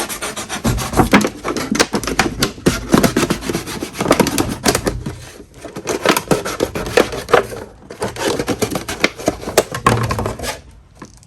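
Benchmade Mini Adamas knife blade cutting through a container to make a makeshift vase: a dense, irregular run of crackling clicks as the blade works through the material, stopping shortly before the end.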